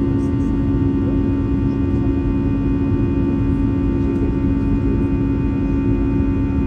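Airbus A320 jet engines heard from inside the cabin while the airliner climbs after takeoff: a steady, loud drone made of a low rumble, a strong low hum and several fainter higher steady tones.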